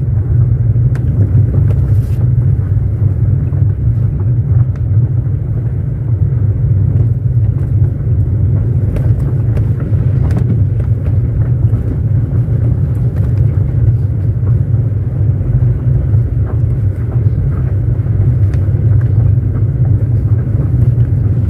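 Car driving along a gravel road, heard from inside the cabin: a steady low rumble of tyres and engine, with occasional faint clicks.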